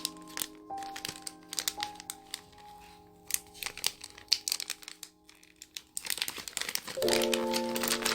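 Packaging crinkling and rustling in sharp irregular crackles as a parcel is unwrapped by hand, densest about six seconds in, over soft piano background music.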